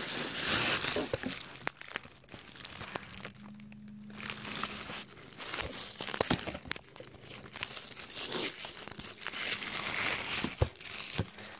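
Crinkling and rustling with a few sharp clicks and knocks: the phone being handled close up while it is plugged into a charger.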